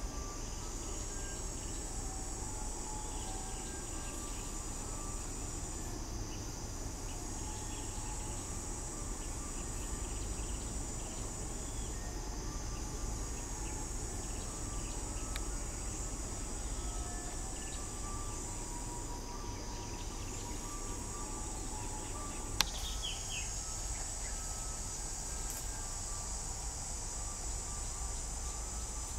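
Insects droning in a high, steady band that breaks off and resumes every several seconds, with faint short chirping notes beneath it and a single sharp click about two-thirds of the way through.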